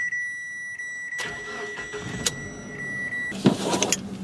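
2015 Mitsubishi Triton's dashboard warning chime sounding as one steady high tone that cuts off about three seconds in. A click comes about a second in, and the engine starts and idles with a steady low hum beneath it.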